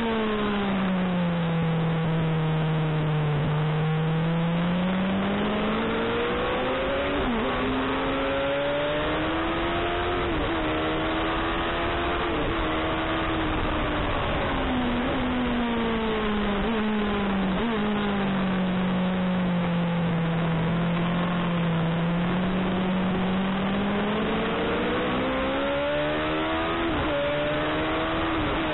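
Suzuki motorcycle engine heard from on board at speed, over steady wind rush. Its pitch falls away twice as it slows, and climbs back in steps with brief dips at the upshifts.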